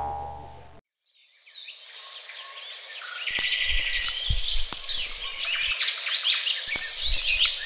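A woodland ambience of many birds chirping, fading in after a moment of silence about a second in, with scattered soft low thuds beneath. At the very start the tail of a cartoon sound effect dies away.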